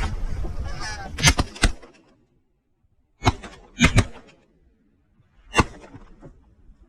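Five shotgun blasts at geese: two close together about a second in, then three more spaced out over the next four seconds. Geese honk at the start.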